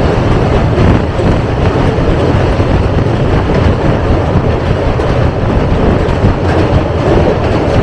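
Himgiri Express passenger train running along the line: a loud, steady rumble of the coach and its wheels on the rails.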